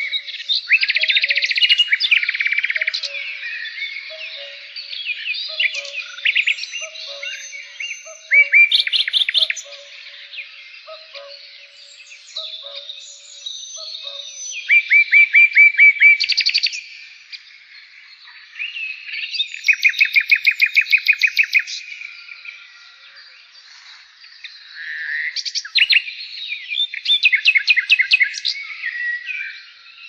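Birds singing: loud bursts of rapid trilling and chirping every few seconds. A faint low note repeats about once a second through the first half.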